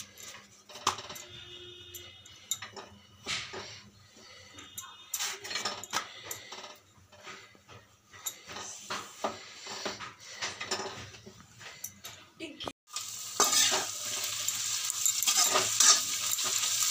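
Scattered clicks, knocks and short scrapes of utensils while a roti cooks on a tawa. After a sudden break about thirteen seconds in, steady sizzling as paneer bhurji fries in a kadhai, with a metal slotted spoon stirring and scraping the pan.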